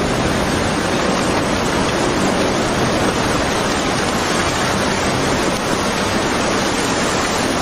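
Tsunami floodwater rushing past, carrying wrecked houses and debris: a loud, steady rush of water noise with no breaks.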